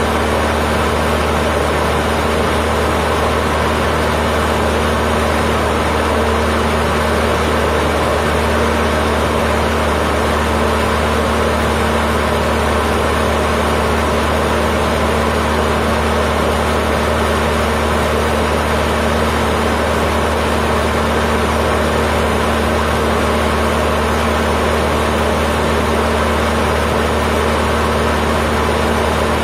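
Cessna 152's four-cylinder Lycoming O-235 engine and propeller running steadily in flight, heard from inside the cockpit as a loud, constant drone with a low steady hum.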